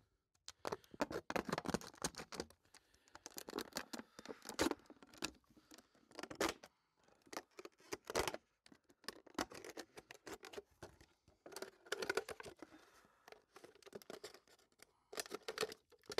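Stanley knife cutting a hole in a thin plastic drink bottle: irregular crackling, scratching and snapping of the plastic as the blade works through it, in uneven spurts with short pauses.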